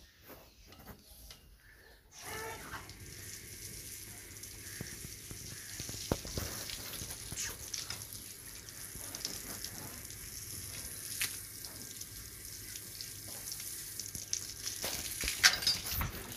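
Water from a garden hose spraying onto a cow's hide, a steady splashing hiss that starts about two seconds in, with now and then a louder splatter.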